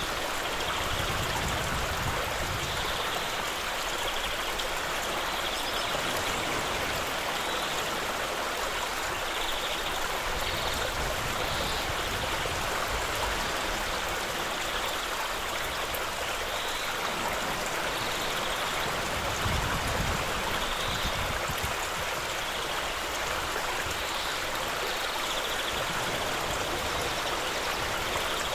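Shallow stream running over a gravel bed, a steady rushing and trickling, with an uneven low rumble underneath.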